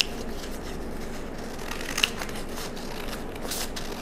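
Scissors snipping through a brown paper sewing pattern, with a few sharp clicks of the blades, one about two seconds in and several close together near the end.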